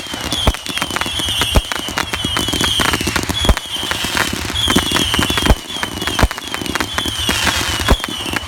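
Fireworks and firecrackers going off: a dense run of popping and crackling with louder single bangs every second or so. A short, high falling chirp repeats over it about twice a second.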